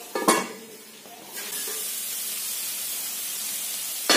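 Banana flower stir fry sizzling in a kadai over a low flame, steaming in its own moisture: a steady hiss that sets in about a second and a half in. There is a short knock near the start and another near the end.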